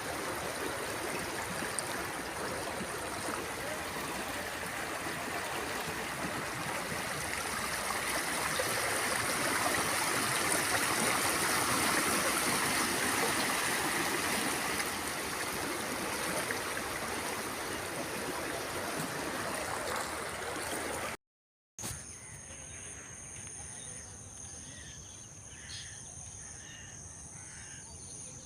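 Forest river flowing steadily, swelling a little in the middle. About 21 seconds in it cuts off abruptly; a quieter stretch follows with steady high-pitched insect calls and a few short bird chirps.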